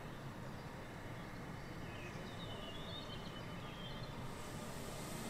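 Electric multiple unit train approaching slowly, heard faintly as a low rumble with a hiss that grows near the end. A few faint bird chirps about halfway through.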